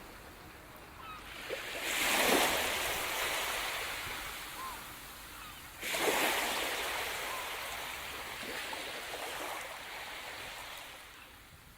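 Ocean surf: two waves break and wash up a beach, about two seconds in and again about six seconds in. Each swells quickly and then slowly hisses away.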